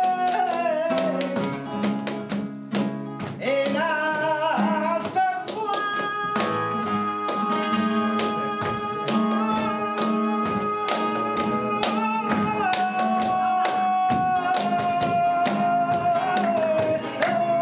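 Flamenco tangos: a cantaor sings long, wavering held notes over flamenco guitar, with hand-clapping (palmas) keeping the compás.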